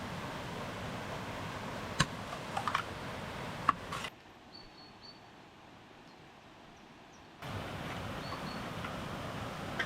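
Steady outdoor background noise with a few sharp knocks about two to four seconds in; the background drops quieter for a few seconds in the middle, then returns.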